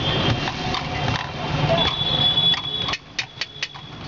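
Street traffic: a motor vehicle engine running with a steady low hum, and a high steady tone heard at times. The sound drops abruptly about three seconds in, leaving a few sharp clicks.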